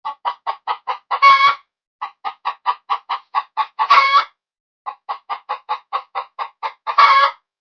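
Hen clucking: three runs of quick, short clucks, each ending in a longer, louder squawk.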